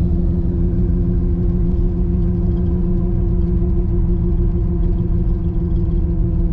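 Steady engine drone and road rumble heard from inside the cabin of a moving car, with an even low hum that does not change.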